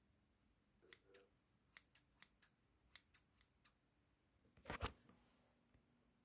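A quiet series of about a dozen short, sharp clicks over roughly three seconds, then a louder brief clatter about five seconds in.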